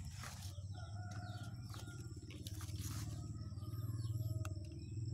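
Chickens calling faintly in the background, a few short calls, over a steady low hum, with a few light ticks and brief high bird chirps.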